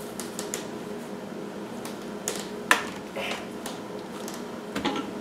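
Small clicks and taps of bananas being peeled and broken into a plastic food-processor bowl, with one sharper click about halfway through, over a steady low hum.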